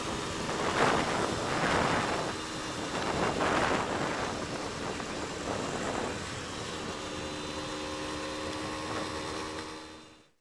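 Wind rushing over the microphone of a moving motorcycle, with the Suzuki Satria 120R's two-stroke engine running steadily underneath. The sound cuts off suddenly near the end.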